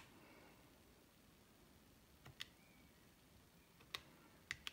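Faint clicks of plastic keys being pressed on a Casio MS-80VERII desktop calculator: a few separate presses, about two seconds in, around four seconds in and near the end, otherwise near silence.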